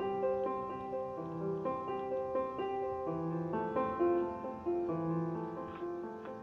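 Background music: classical piano music, a steady run of notes with chords.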